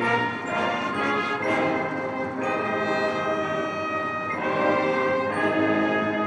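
Military brass band playing a slow piece of long, held chords during a salute.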